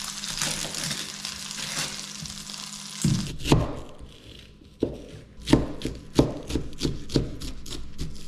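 Butter sizzling in a hot cast iron skillet. About three seconds in, a knife starts chopping an onion on a paper plate, about ten sharp, uneven strikes over the sizzle.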